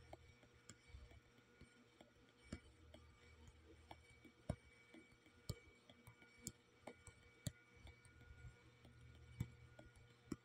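Near silence: faint steady hum with irregular small clicks, roughly one a second.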